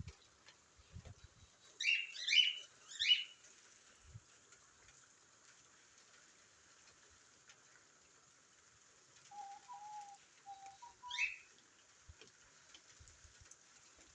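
Bird calls: three quick rising chirps about two seconds in, a few short, low cooing notes around nine to eleven seconds, then one more chirp.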